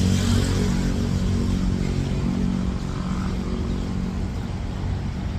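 Street traffic: a motor vehicle's engine running close by, with a steady hum that fades away about three seconds in, over the general noise of the road.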